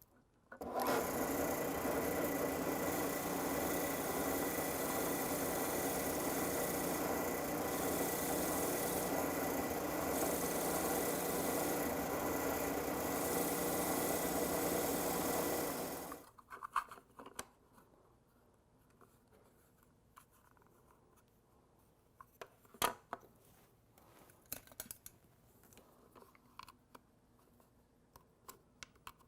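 A motor-driven shop tool runs steadily for about fifteen seconds, then stops suddenly, leaving scattered small clicks and handling noises.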